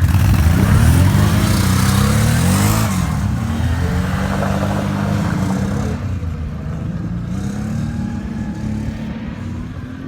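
ATV engine revving under throttle: its pitch climbs over the first few seconds, holds, dips about six seconds in, then rises again as it gradually gets quieter.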